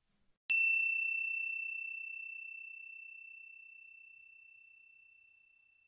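A small bell or chime struck once, about half a second in, ringing a single high tone that slowly fades away over about five seconds. Its brighter upper overtones die out within the first second.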